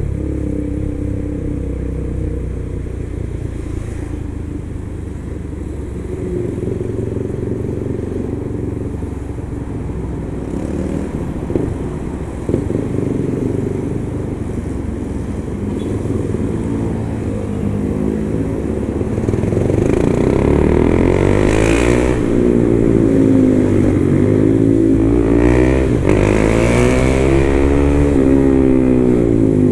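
KTM 390's single-cylinder engine under way, running fairly steadily at first; from about two-thirds through it gets louder and its pitch rises and falls repeatedly as the bike accelerates and slows.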